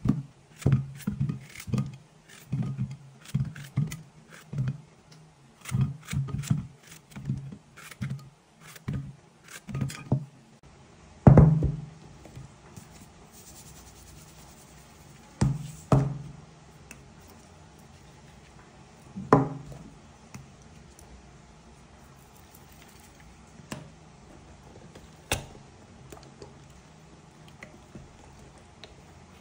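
Knife cutting courgettes, with chunks knocking against a glass baking dish: a quick run of short knocks for the first ten seconds, then three heavier thuds spread out and a few faint taps.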